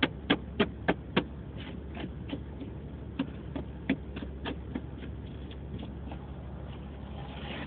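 A quick run of sharp taps or knocks, about three a second at first, then fainter and more irregular, over the steady low hum inside a car.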